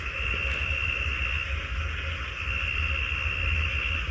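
Steady ambient drone in an analog horror soundtrack: a constant high-pitched tone over hiss, with a low hum underneath.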